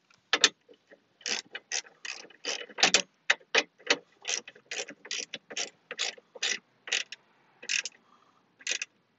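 Hand ratchet wrench clicking through short back-and-forth strokes as fasteners are tightened, about three sharp clicks a second.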